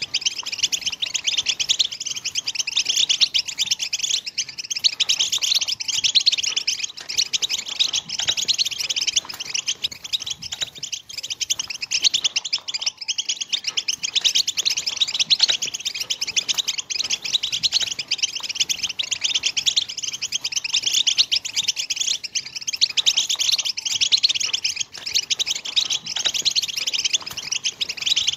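European goldfinch courtship song: continuous, rapid high-pitched twittering and chattering trills without a break.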